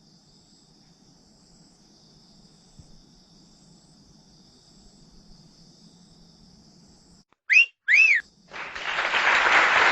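Faint steady drone of crickets or other insects, then near the end two loud whistles, each rising and falling, about half a second apart, followed by a swelling hiss like applause.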